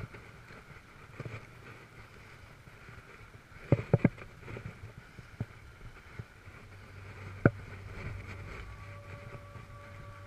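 Inline skate wheels rolling over pavement, a steady rolling noise broken by a quick cluster of sharp knocks about four seconds in and one loud knock about seven seconds in, as the wheels hit bumps and joints in the surface.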